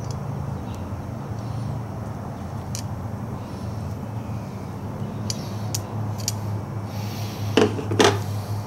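Light clicks of metal on metal as the retaining clip is worked into the groove above the new fork seal on a motorcycle fork leg, then two louder knocks near the end, over a steady low background hum.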